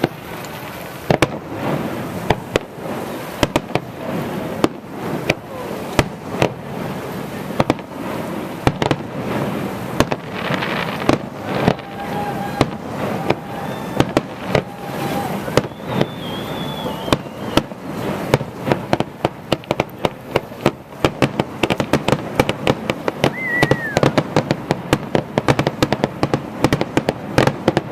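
Aerial fireworks display: shells bursting in a rapid string of bangs and crackles, growing denser in the second half.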